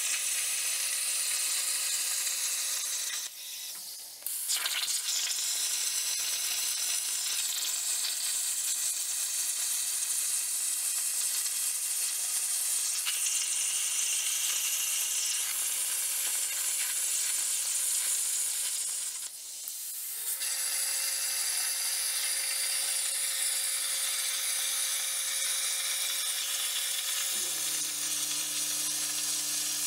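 Razorcut 45CNC plasma cutter on a CNC plasma table cutting steel plate: a steady, hard hiss of the plasma arc that stops briefly twice, about four seconds in and again near twenty seconds, between cuts. Near the end a low steady hum joins the hiss.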